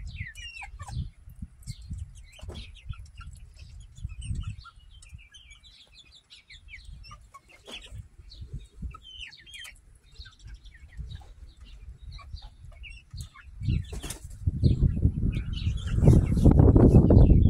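Hens in a coop giving short chirping and clucking calls through the first ten seconds or so, over a low rumble. From about fourteen seconds in, a loud low rumbling noise on the microphone covers them.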